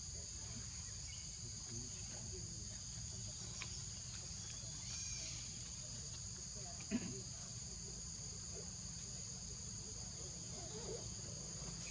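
Steady insect chorus, a continuous high buzz that holds level throughout, over a low steady rumble, with a single sharp knock about seven seconds in.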